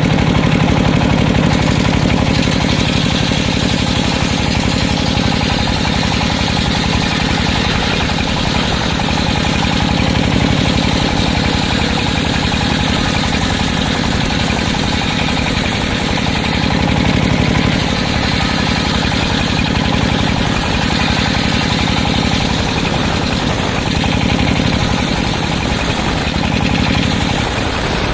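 Sawmill circular saw machine running steadily, its engine drone unbroken throughout.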